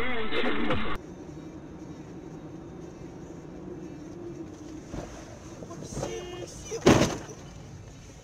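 Music cuts off abruptly about a second in. A car's engine then hums steadily inside the cabin, and near the end comes one sudden, very loud bang, the impact of a collision.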